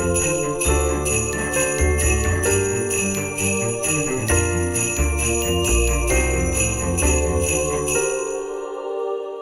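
Festive background music driven by jingle bells shaken on a steady beat over a bass line and chords. The beat and bass stop about eight seconds in, and the last chord fades away.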